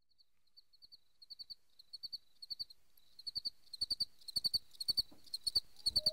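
High chirping in quick groups of three pulses, about two groups a second, fading in from faint to clear; the pattern is that of a cricket's chirp.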